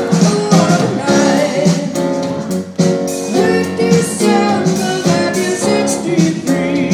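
A ventriloquist singing a song in his puppet's voice, accompanied by acoustic guitar.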